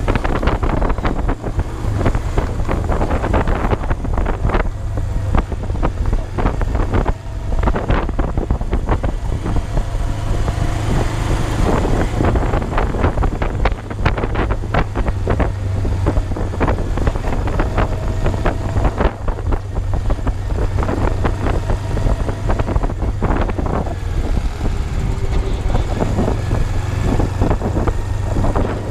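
Kawasaki GPz250 Belt Drive's parallel-twin engine running as the motorcycle is ridden along a road, its pitch drifting up and down with the throttle, under steady wind noise buffeting the microphone.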